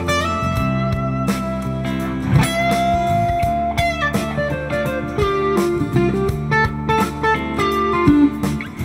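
Electric blues lead played on a Fender Telecaster through an overdrive pedal with compression and boost, into a Fender '65 Deluxe Reverb Reissue amp. Sustained single notes with string bends, over a backing track with steady low bass notes.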